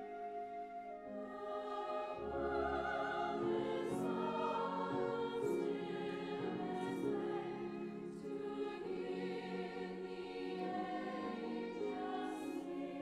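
Choir singing with a full symphony orchestra; a deep bass note comes in about two seconds in.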